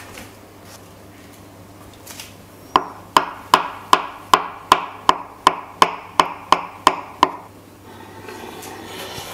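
Kitchen knife chopping hard-boiled eggs on a wooden cutting board: about a dozen even knocks, roughly two and a half a second. Near the end there is a soft rustle as the diced egg slides off the board into a pot.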